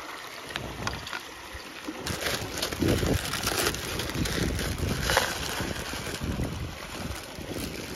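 Wind buffeting the microphone in uneven gusts, with a low rumble that swells and fades.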